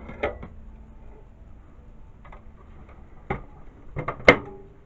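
A few light knocks and clatters of something being set down, then a sharp click about four seconds in as the microwave oven door is pushed shut and latches.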